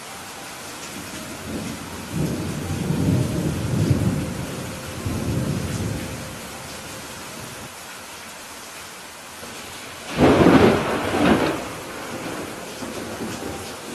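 Steady rain with thunder. A rolling rumble starts about two seconds in and lasts around four seconds, then a louder, sharper clap comes about ten seconds in.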